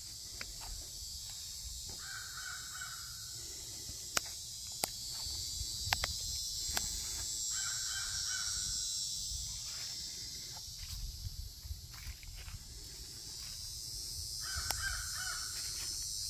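An animal call, harsh and drawn out, repeated three times about six seconds apart over a steady high insect chorus. A few sharp clicks are scattered between the calls.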